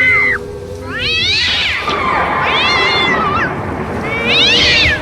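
Three wailing animal cries in a horror sound effect, each about a second long, rising then falling in pitch, over a faint low steady drone; an earlier cry cuts off just after the start.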